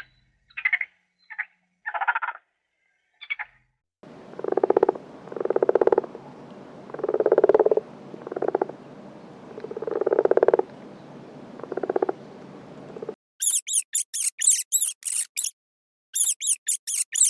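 A frog croaking: about six low, rattling croaks over roughly nine seconds. Before it come a few short mid-pitched calls, and near the end a run of fast, high-pitched chirps takes over.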